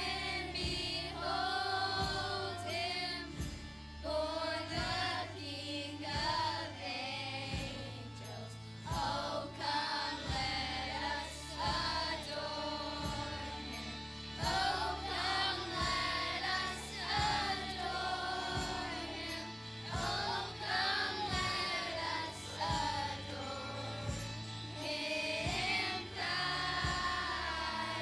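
Music with a steady beat and singing voices, a gospel or Christian song with a choir.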